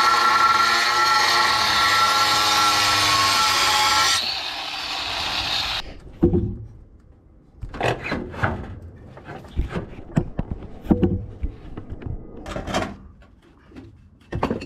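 Angle grinder cutting a clay roof tile: a loud, high whine with grinding hiss for about the first four seconds. It then runs on lower and quieter and cuts off about six seconds in. After that come several separate knocks and clatters as the cut clay tiles are handled and laid in place on the roof.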